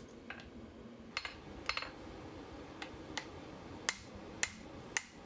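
Hand hammer striking a glowing bar of hot axle steel on an anvil, about eight short blows at uneven spacing, while the square taper of a hardy hot-cut tool is dressed. A steady hiss from the gas forge runs underneath.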